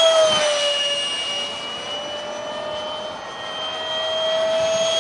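Detrum 70 mm electric ducted fan of a foam RC jet in flight: a steady high whine that drops slightly in pitch about half a second in, fades a little mid-way, then swells louder again near the end.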